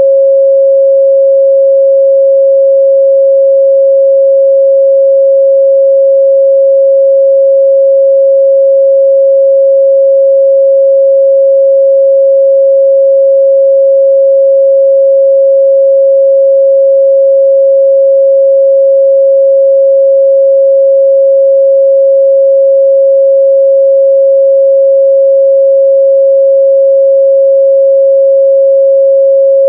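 A steady, pure 545 Hz sine-wave test tone, held unchanged at one loud level.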